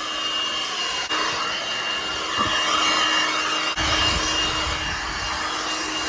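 A small DeWalt handheld blower running steadily with a high whine, blowing brick dust off a freshly hacked-back wall. The motor briefly drops out twice, and a low rumble joins in about four seconds in.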